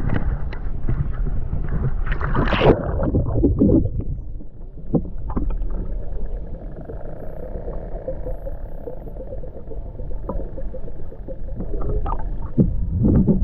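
Sea water sloshing and splashing close to the microphone over a steady low rumble, with louder splashes in the first few seconds and again near the end.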